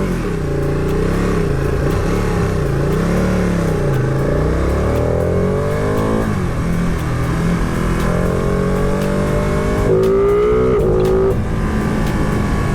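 Motorcycle engine at low revs with the throttle rising and falling while the bike turns around, then pulling away: its pitch climbs, drops suddenly at a gear change about six seconds in, climbs again and drops at a second gear change near the end.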